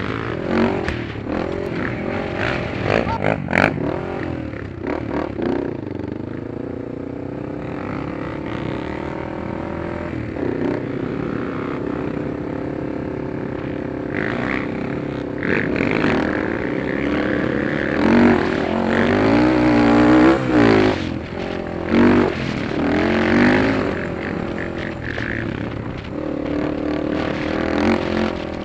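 ATV engine running under throttle on a dirt trail, its pitch rising and falling as the rider opens and eases off the throttle, loudest as the revs climb about two-thirds of the way through. A few short knocks and rattles come from bumps in the trail.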